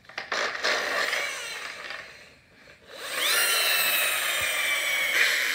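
Small electric motor of a Lightning McQueen toy car whirring: a rough whir for about two seconds, then a whine that rises in pitch and holds for about two seconds before cutting off near the end.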